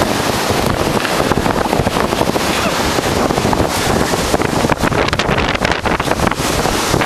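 Blizzard wind, sustained around 54 mph with stronger gusts, blasting straight onto the camera microphone. A loud, continuous rushing with irregular buffeting thumps as the gusts hit.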